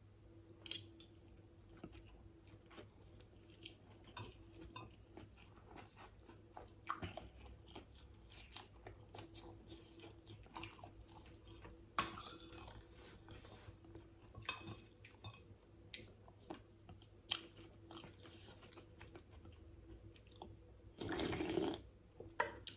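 A person chewing a mouthful of fish soup and rice up close, with soft wet mouth clicks and smacks scattered throughout. Near the end there is a louder breathy sound lasting about a second.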